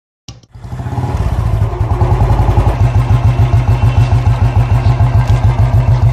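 Royal Enfield single-cylinder motorcycle engine idling through an aftermarket cannon barrel silencer: a steady, rapid run of deep exhaust thumps. The sound cuts in a moment after the start and builds over the first second.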